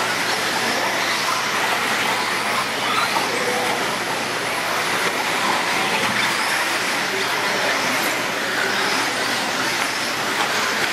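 Modified electric 4wd RC buggies racing on a dirt track: a steady mix of high electric-motor whine and tyre and chassis noise from several cars at once, with no single event standing out.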